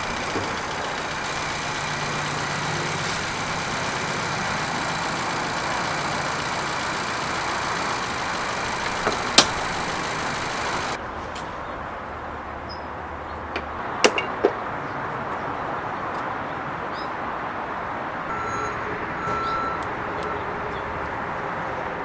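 2017 Honda Civic Si engine idling steadily, with a high hiss over it that cuts off abruptly about halfway through. A few sharp clicks or knocks come in the middle, the loudest about nine seconds in.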